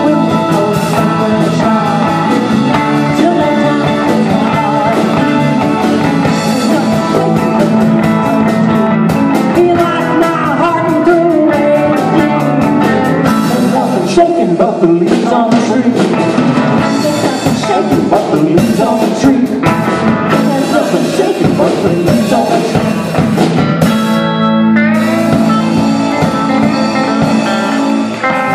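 A live rock-and-roll band playing electric guitars and drums, with a woman singing.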